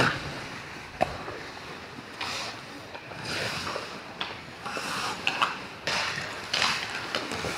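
Ice hockey skates scraping and carving on the ice in repeated short hisses, with a sharp click about a second in and a few fainter clicks later, typical of sticks striking the puck.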